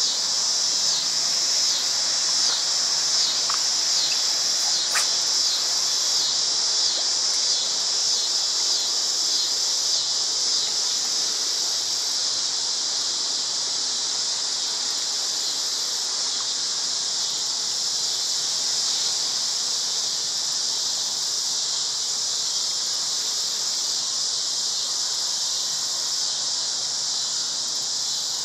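A dense chorus of insects singing in a steady, high drone. It pulses for the first ten seconds or so, then evens out.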